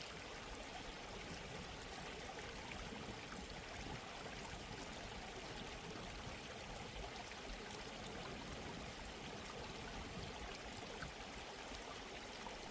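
Soft, steady sound of a flowing stream, water running and trickling as an ambient background.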